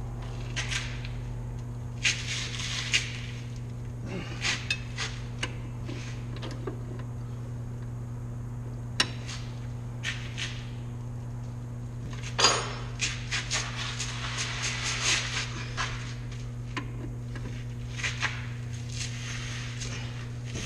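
Scattered metallic clinks and clanks, with one sharper knock about twelve seconds in, from a long breaker bar and socket being worked against a rear control arm bolt seized in its bushing sleeve.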